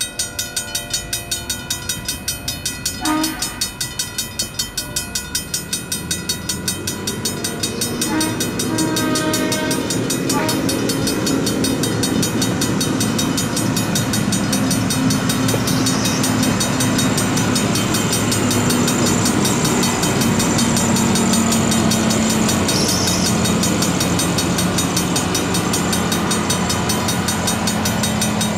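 Railroad crossing bell ringing in quick even strokes, about three to four a second, with two horn blasts, about three and eight seconds in. From about six seconds the engines of a track ballast regulator and a hi-rail rock truck build into a steady drone as they run over the crossing.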